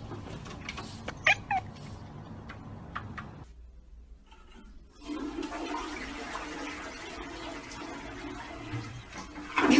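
A cat gives a few short chirping calls, then, after a cut, a toilet flushes. The flush is started by a cat pawing the tank handle, and water rushes steadily into the bowl from about five seconds in.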